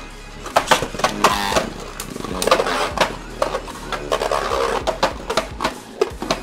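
Beyblade spinning tops, a 3D-printed Beyblade against Super Hyperion, spinning and colliding in a plastic stadium: a rapid, irregular run of sharp clacks with short scraping rattles between them.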